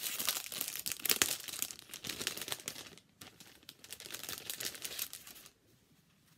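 Clear plastic bag crinkling as it is handled, in two bouts of dense crackling that stop about five and a half seconds in.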